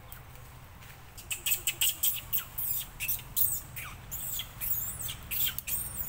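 A baby monkey giving rapid, high-pitched squeals, several a second, starting about a second in. Many of the squeals drop in pitch.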